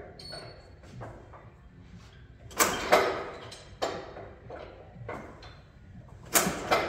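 Metallic clanks and knocks from work on an old crawler tractor's engine: two loud clusters of quick hits, a little over two seconds in and again near the end, with smaller taps between, ringing in the shop's hard room.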